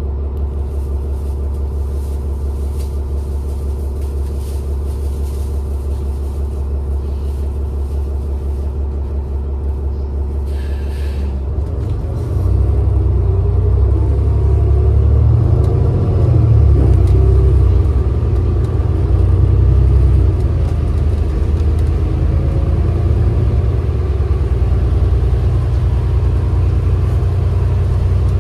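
Inside a 2019 New Flyer XD40 Xcelsior diesel bus: the engine idles with a steady low rumble, a short hiss comes about ten seconds in, then the engine gets louder as the bus pulls away, with a whine that rises and falls.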